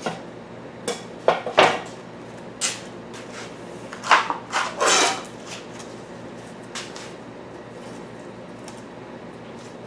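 Wooden and metal knocks and clatter from molding boards and a casting flask being handled and set down. The clunks come in irregular groups, the loudest a flurry of them about four to five seconds in.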